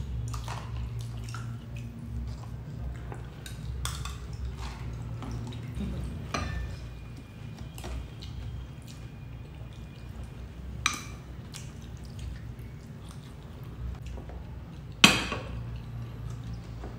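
Spoons clinking and scraping against ceramic bowls, plates and a glass jar while eating, with scattered light clicks and one sharp, loud clink about fifteen seconds in, over a low steady hum.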